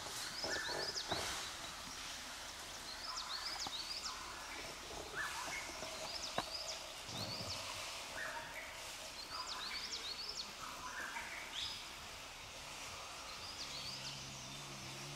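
Forest birds calling over steady woodland ambience: a phrase of quick rising whistles with lower stepped notes, repeated every two or three seconds. A low steady hum comes in near the end.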